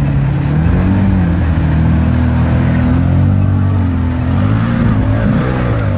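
Side-by-side UTV engine revving up and down repeatedly under load, its pitch rising and falling several times over a rushing noise.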